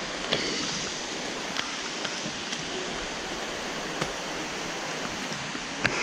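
Heavy rain falling steadily in the rainforest: a constant hiss with scattered sharp taps close by.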